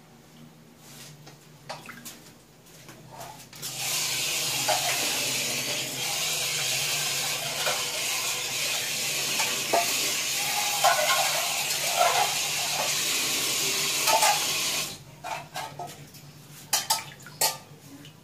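Water running steadily as a hiss, starting about four seconds in and stopping suddenly about eleven seconds later. Light clicks and knocks from snails being handled in an aluminium bowl come before and after it.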